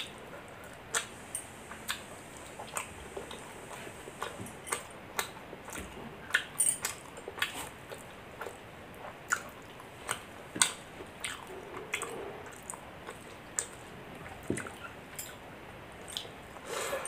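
Close-up chewing and wet mouth clicks from a person eating soft milk rice with vegetable curries. Irregular sharp smacks, sometimes several in quick succession.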